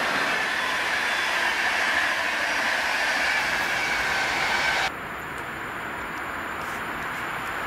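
Passenger coaches of an intercity train rolling past on electrified main-line track: a steady rush of wheels on rail with a high ringing tone that sags slightly in pitch. About five seconds in, the sound cuts off sharply to a quieter, slowly growing rumble of the next train, an EP07 electric locomotive approaching from a distance.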